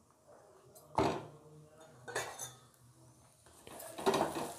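Metal spoon clinking and scraping on a tawa as ghee is spread over a paratha. There is a sharp clink about a second in and a lighter one a second later, then steady scraping that grows louder near the end.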